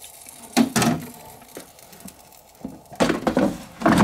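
Metal drawer of a Ninja dual-zone air fryer being handled and slid back into the machine: a sharp knock about half a second in, then a longer burst of scraping and clunking in the last second as the drawer goes home.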